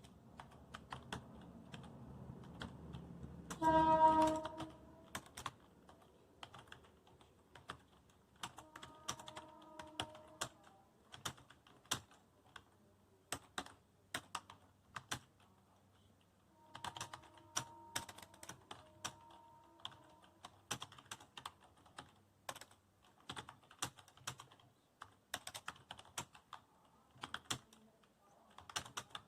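Steady fast typing on a computer keyboard, an irregular run of key clicks. About four seconds in, a loud short pitched tone cuts across the typing, and fainter tones of the same kind come twice later.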